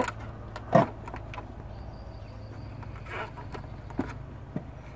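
A zip tie being threaded through the latch of a plastic battery backup enclosure: scattered plastic clicks and taps, the loudest about a second in, over a steady low background hum.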